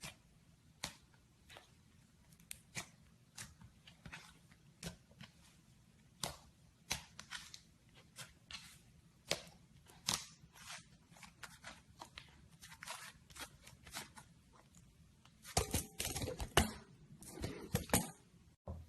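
Slime being handled, giving irregular crisp clicks and pops, with a denser, louder run of crackling near the end.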